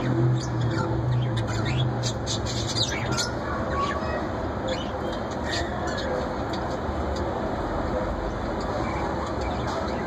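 Budgerigars chirping and squawking in short, sharp calls, thickest in the first four seconds and sparser after, over a steady background noise.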